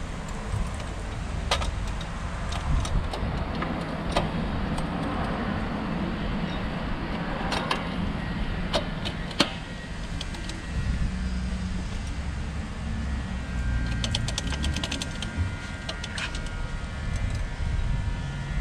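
Scattered clicks and light metal knocks from hand work and a tool on the intake parts of an individual-throttle-body kit, over a steady low rumble. A quick run of ticks comes about fourteen seconds in.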